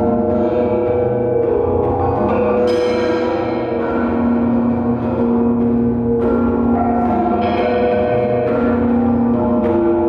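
Handmade metal sound sculptures, a tall wire-frame form and a metal box, played with sticks and a mallet. Overlapping bell-like ringing tones, several at once, each held for a couple of seconds, with a fresh sharp strike every few seconds.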